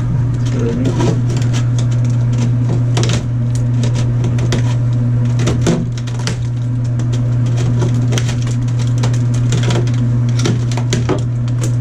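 Repeated cracking and crunching of tile and wall material being broken away, over a loud, steady low machine hum.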